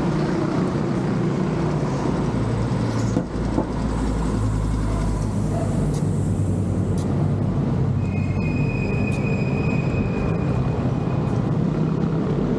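Steady rumble of road traffic and wind on the microphone while cycling along a busy highway. A high, thin squeal from a passing vehicle rises out of the noise about eight seconds in and lasts about three seconds.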